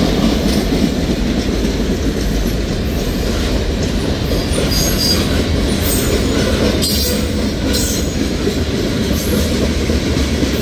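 Mixed freight train of boxcars and tank cars rolling past, giving a steady low rumble of steel wheels on rail, with a few brief high wheel squeals over the second half.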